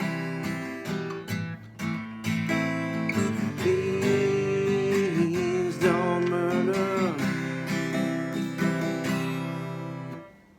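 Acoustic guitar strumming the closing chords of the song, with a held, wavering melody note over it in the middle. The last chord fades out near the end.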